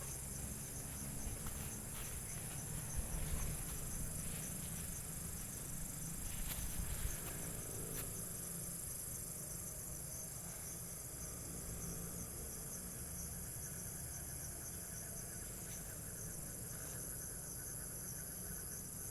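Night insect chorus of crickets, a steady high-pitched chirring. A few soft rustles, like steps through undergrowth, come in the first eight seconds.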